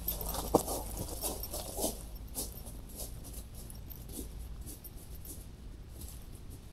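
Hiker's footsteps on an old woods road, soft crunches about every half second that grow sparser and fainter after the first few seconds.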